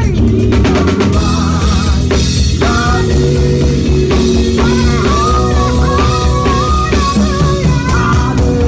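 Live worship band music: a drum kit keeping a busy beat with cymbals, over held bass notes and a wavering melody line.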